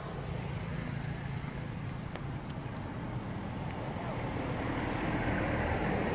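A motor vehicle's engine running steadily as a low rumble, growing louder from about four seconds in.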